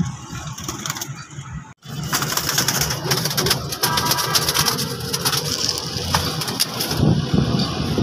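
Pigeons cooing inside a wire-mesh coop, with scuffling and clicking as someone reaches in among the birds.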